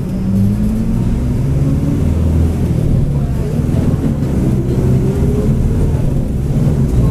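Mercedes-Benz OF-1722M bus's diesel drivetrain running under way: a steady low rumble with a growling differential whine that rises in pitch as the bus gathers speed.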